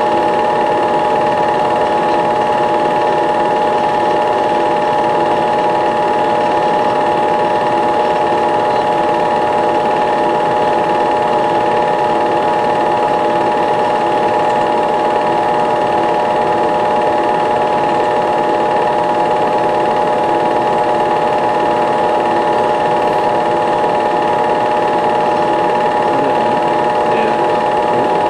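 Super 8 film projector running: a steady mechanical whir with a constant pitched hum that stays unchanged throughout.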